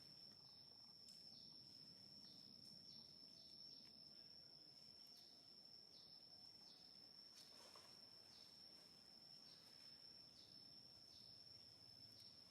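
Faint outdoor ambience: a steady high insect drone, with short falling chirps repeating about once or twice a second.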